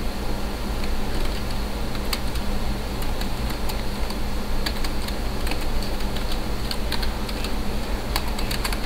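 Keyboard keys clicking irregularly as a username is typed, over a steady low hum and hiss.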